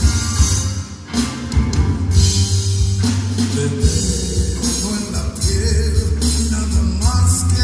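Rock band playing live: electric guitars and drums, with a brief dip in loudness about a second in.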